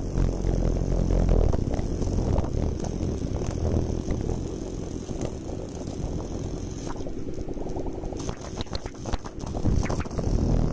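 High-voltage plasma arc burning between two electrodes inside a neodymium ring magnet, buzzing with a steady low hum and crackling throughout.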